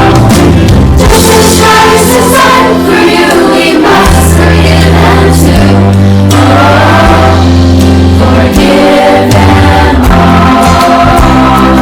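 Upbeat children's Christian song with a group of voices singing over a steady bass and guitar backing.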